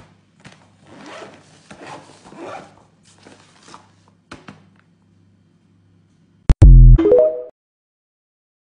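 Soft rustling and handling of a fabric lunch bag as it is closed, then a brief, loud electronic jingle, TikTok's end-screen logo sound, a deep tone followed by quick rising notes, about six and a half seconds in.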